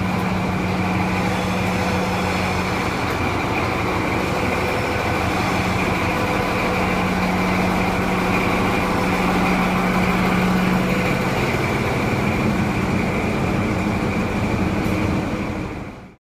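Class 43 HST power car's diesel engine running close by, a steady engine note with a steady high whine over it; the sound cuts off abruptly near the end.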